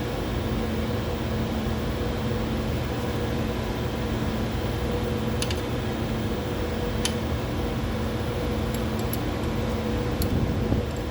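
Steady mechanical hum of laboratory instrument fans and pumps, with a few light clicks scattered through it.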